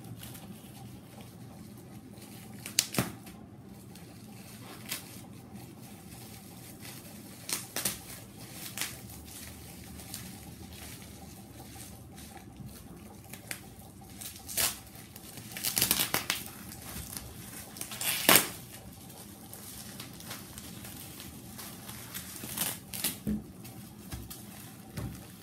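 Bubble-wrap and plastic packaging being pulled off a rolled mat by hand: irregular crinkling and rustling, with scattered sharp crackles and tears. The loudest come a little past halfway.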